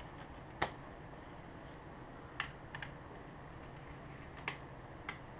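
A few short, sharp clicks and taps from a laptop's small screws and parts being handled by hand, about five spread out over several seconds.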